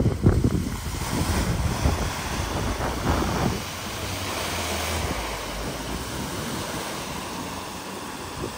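Floodwater surging and splashing as a people carrier drives through a deep flooded ford, pushing a bow wave, with wind buffeting the microphone. The noise is gustier and louder for the first few seconds, then settles into a steadier rush.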